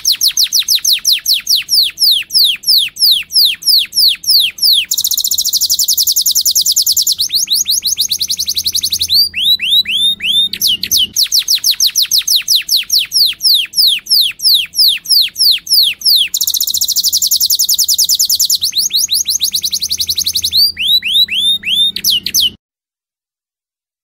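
Recorded songbird call played as a masteran track for training cage birds: a fast series of high downward-sweeping whistles, about five a second, alternating with stretches of a harsh, buzzy high trill. It cuts off abruptly about a second and a half before the end.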